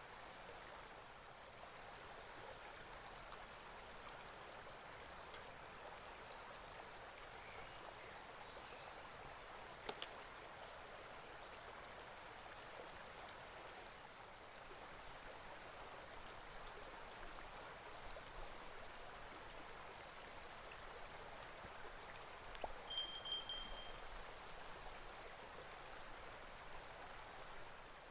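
Faint steady rush of flowing water. A single sharp click about ten seconds in, and a brief high whistle near the end.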